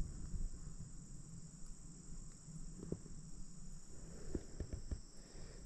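A steady high-pitched insect chorus, with a few faint soft knocks.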